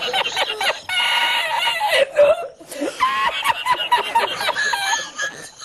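A man laughing uncontrollably, a high-pitched, squeaky laugh in quick repeated pulses, with a brief catch of breath about halfway through.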